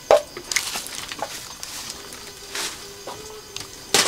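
Irregular rustles and scrapes, a few short ones spread over the seconds, the sharpest just at the start and another near the end. A faint steady hum sits under them for a second or so in the middle.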